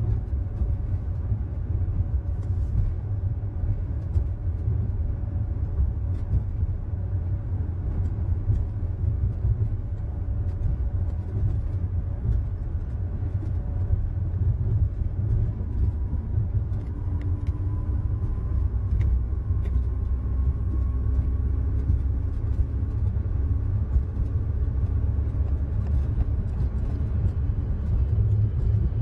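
Steady low rumble inside the cabin of an ULTra personal rapid transit pod as it rides on rubber tyres along its concrete guideway. A faint whine rises gently in the middle.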